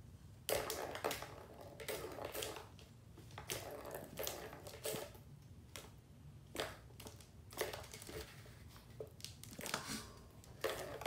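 A kitten batting at a plastic tiered ball-track cat toy: irregular bursts of plastic rattling and clattering, with sharp clicks, starting about half a second in and repeating every second or so.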